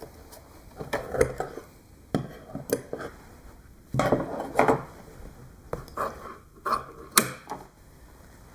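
Tools and materials handled on a workbench: a scattered series of short knocks and clatters, some in quick clusters.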